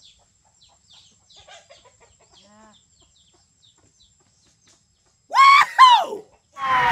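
Faint chirping for the first few seconds, then two loud calls about a second before the end, each rising and then falling in pitch, typical of a chicken squawking. A loud burst of noise with sliding tones follows at the very end.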